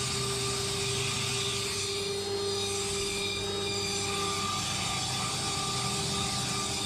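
HOMAG Centateq N500 CNC router's spindle running with a 1/2-inch three-flute finishing cutter milling wood at high feed. A steady whine of several held tones over a rushing hiss.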